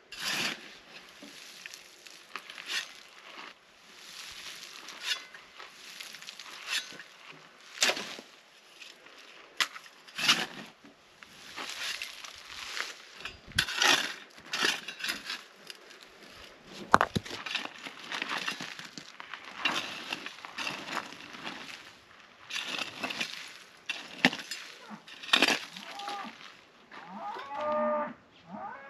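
Metal shovel scraping and chopping into ash, dirt and stones in a rock fire ring, in irregular strokes about every second or two. Near the end a cow moos.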